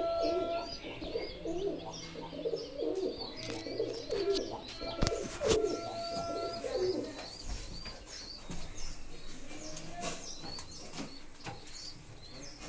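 Domestic pigeons cooing in a loft, the low cooing strongest over the first seven seconds or so. Short, high, repeated chirps run over the top, and there are a couple of sharp clicks about five seconds in.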